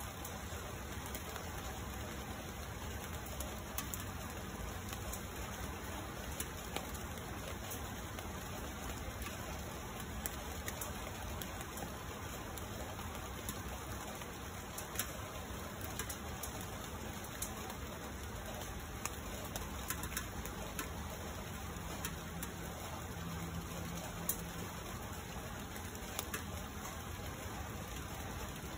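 Steady rain falling on tree leaves, with scattered sharp ticks of single drops landing close by.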